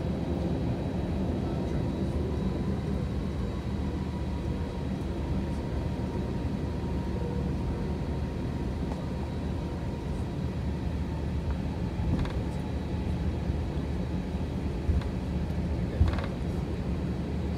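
Steady low rumble inside an Airbus A321's cabin, with a faint high whine that fades about halfway through. Two brief clicks come near the end.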